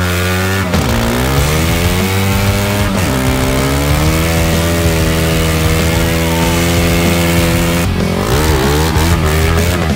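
Honda CBX 250 Twister single-cylinder engine, fitted with a larger F800 piston, held at high revs while its rear tyre spins in a burnout. The revs dip and climb back twice in the first three seconds, then hold steady. Near the end the pitch starts to rise and fall unevenly.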